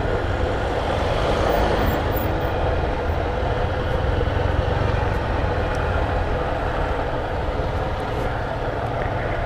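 Motorcycle engine running steadily while riding, with wind noise on a helmet-mounted camera's microphone.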